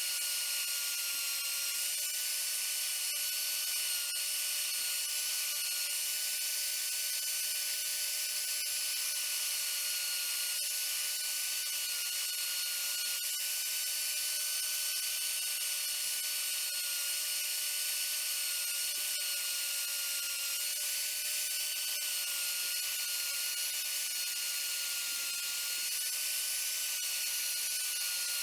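A small power tool motor running at a steady speed, giving a steady whine over a hiss, likely at work on the scissors in the restoration.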